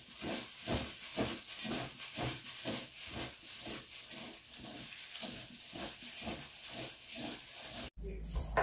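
Green flattened rice flakes (cốm dẹp) moistened with coconut water being tossed and mixed: a rhythmic wet rustling, about three strokes a second, that cuts off abruptly near the end.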